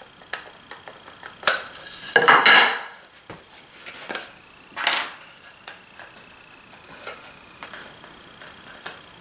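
Wooden boards being handled on a metal workbench: scattered clicks and knocks with two louder scraping rubs, about two seconds in and again about five seconds in.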